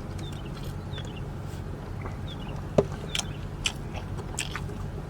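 A person chewing food with scattered wet mouth clicks and smacks, one sharper click about three seconds in, over a steady low hum.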